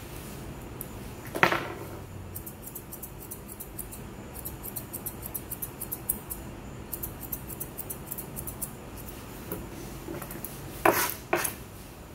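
Grooming scissors snipping in quick runs of crisp, light clicks as a Pomeranian's coat is trimmed. A few louder sharp sounds break in, once about a second and a half in and twice close together near the end.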